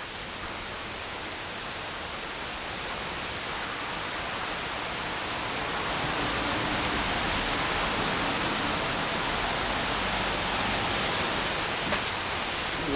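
Heavy rain pouring down in strong wind, a steady hiss that swells as a gust builds about halfway through and eases near the end.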